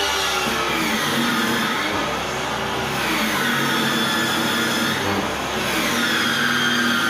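Table-mounted circular saw running and cutting a wooden board at an angle, its motor whine dipping in pitch and recovering a few times as the board is fed through the blade.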